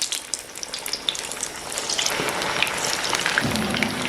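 Masala-coated chicken pieces deep-frying in hot mustard oil in a kadhai on a high flame: a steady sizzle full of quick crackles, getting louder about two seconds in.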